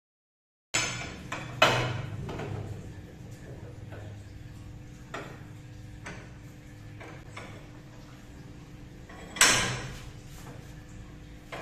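Metal clanks and scrapes from a cast-iron bench vise being worked: a motorcycle's lower fork triple clamp set in the jaws and the vise screw turned with a steel bar. A sharp clank comes early on and a louder ringing clank late on, with lighter knocks between.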